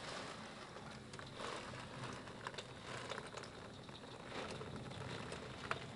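Heavy wind-driven rain lashing a window during a thunderstorm: a steady hiss that swells and eases, with scattered sharp taps of drops striking the glass.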